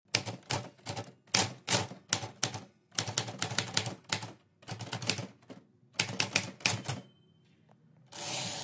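Manual typewriter sound effect: keys striking in quick clusters as a line is typed, then a bell ding about seven seconds in and a longer rasp of the carriage return near the end.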